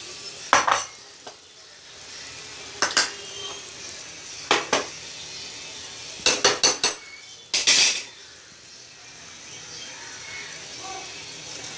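Metal utensil clinking and scraping against a pressure cooker pan as soaked basmati rice is added to the boiling water: single clinks spaced a couple of seconds apart, a quick run of them past the middle, over a steady hiss of water at the boil.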